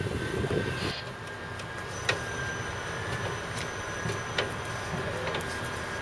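Unloading of a tram's steel wheels on a steel trailer ramp: a steady high whine over a low rumble, with a few sharp metallic clicks, one about two seconds in and another near the middle.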